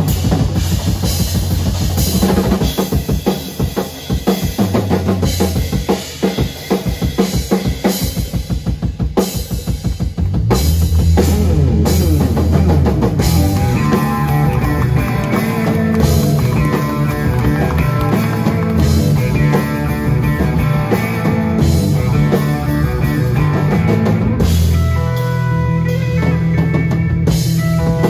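Live rock trio of drum kit, electric bass and electric guitar playing an instrumental. For the first ten seconds the drums lead with dense, rapid fills over bass. Then the whole band comes in louder and heavier, with guitar lines on top.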